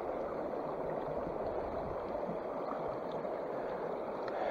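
Creek water running over rocks in shallow riffles: a steady, even rush of water.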